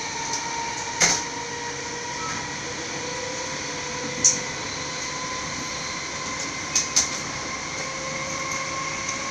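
Electric commuter train running, heard from inside the carriage: steady running noise with a faint whine that rises slightly in pitch. Sharp clicks come about a second in, about four seconds in, and twice in quick succession near seven seconds.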